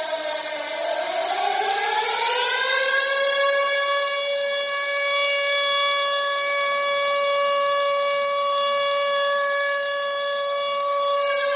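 Hockey goal siren played from a goal horn app: the siren winds up from a low pitch over about three seconds, holds one steady tone, and starts winding down near the end.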